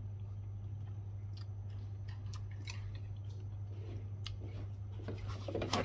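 A person eating: scattered crisp crunching and chewing clicks, denser and louder near the end, over a steady low hum.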